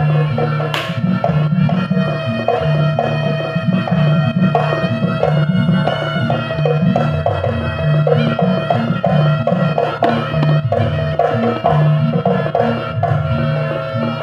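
Live traditional Javanese ensemble music accompanying a dance: hand drums keep a steady, busy rhythm under ringing, held pitched tones.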